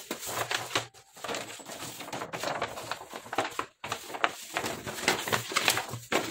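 A large sheet of stiff paper rustling and crinkling as it is handled and folded in two by hand, in a few stretches with short pauses between them.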